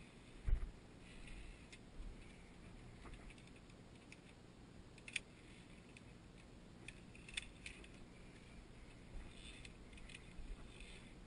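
Via ferrata lanyard carabiners clicking and jingling against the steel safety cable as they are slid along and moved past an anchor. There are a few sharp metal clicks spread through, plus a dull thump about half a second in.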